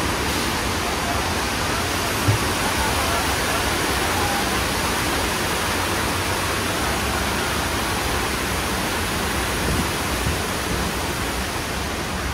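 Steady rushing of a large volume of water from the staged flood at the end of a simulated earthquake, with a single brief knock about two seconds in.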